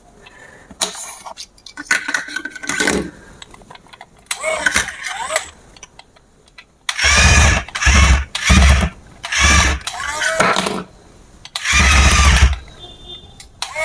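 Small electric motor of a remote-control toy construction vehicle running in repeated short bursts, loudest in a series of runs from about seven seconds in.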